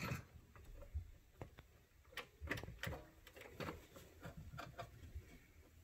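Faint, irregular clicks and light knocks of small plastic RC truck parts being handled and fitted on the front axle.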